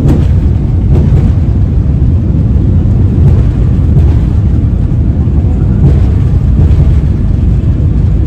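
Jet airliner's engines at takeoff power heard from inside the cabin: a loud, steady low rumble, with a few faint knocks through it.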